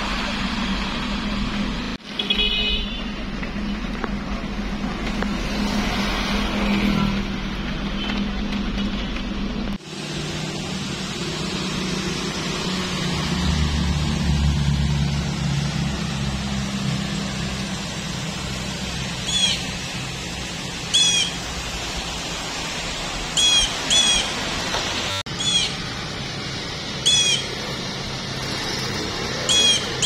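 Steady low rumble of distant city traffic and outdoor noise, changing abruptly a few times. In the second half a bird repeats a short, sharp chirp, mostly in pairs, every second or two.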